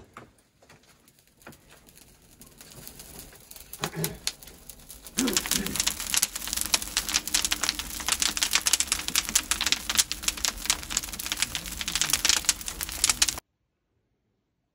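Dry brush and twigs burning as kindling in a tandoor: a faint crackle that builds, then from about five seconds in a dense, loud crackling of the blazing twigs. It stops abruptly near the end.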